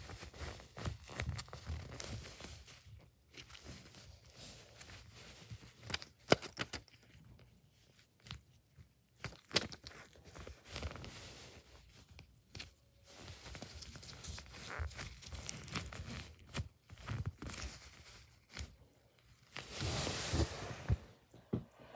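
Hands squeezing and handling a foam squishy toy, giving irregular soft rustles, taps and crinkles, with a longer rustle near the end.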